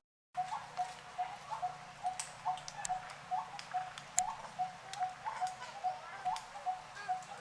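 A bird calling a short, low note over and over at an even pace, about two or three times a second, with sharp clicks scattered among the calls.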